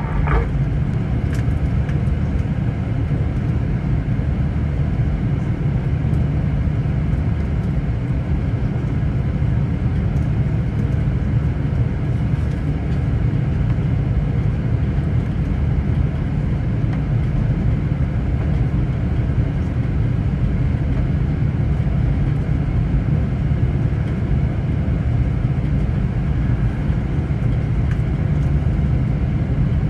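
Jet airliner cabin noise while taxiing: a steady low rumble of the engines at taxi power, heard from inside the passenger cabin.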